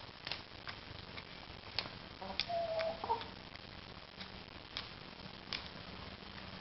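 Hens pecking at a small plastic tub of food, their beaks striking it in irregular sharp taps. About two and a half seconds in, one hen gives a short cluck.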